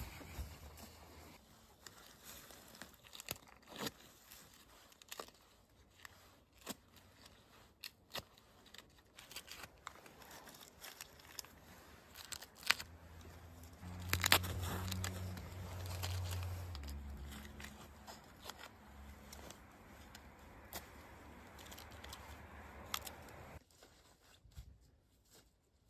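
Close handling noises: tearing and crinkling with many scattered sharp snaps and clicks, louder and fuller for a few seconds past the middle, then dying away near the end.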